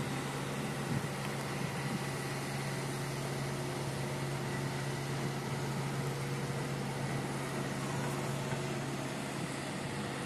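Steady machinery drone from a construction site, a constant low hum that holds unchanged, over a wash of site and traffic noise.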